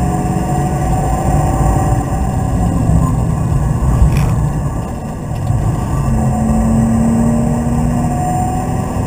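BMW Z3's engine running hard, heard from inside the cabin over a dense road and tyre rumble. There is a short sharp click about four seconds in, and the engine note climbs steadily over the last few seconds as the car accelerates.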